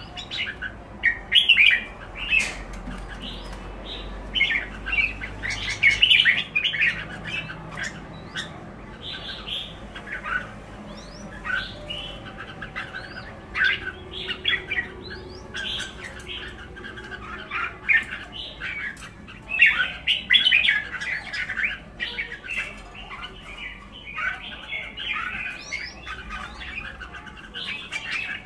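Red-whiskered bulbuls calling in quick bursts of short chirping notes, with brief pauses between the bursts.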